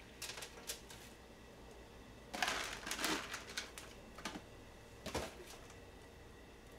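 Kitchen handling sounds: a plastic food container clicking and rustling as noodles are shaken out of it into a saucepan, with a louder cluster of clatter about two and a half seconds in and a single sharp tap about five seconds in.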